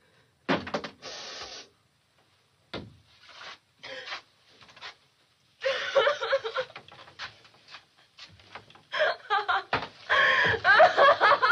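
A woman sobbing and wailing hysterically, her cries breaking and growing louder near the end. A sharp bang about half a second in and another just under three seconds in come before the crying.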